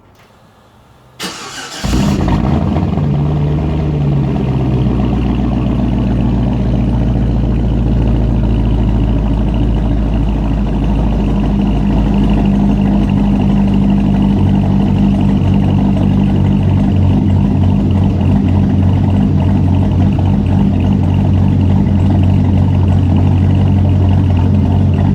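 Cold start of a Cadillac CTS-V's supercharged LSA V8 fitted with a Brian Tooley Racing stage 1 cam and a rear muffler delete. The starter cranks briefly about a second in, the engine catches and flares, then settles into a loud, pulsing cammed idle.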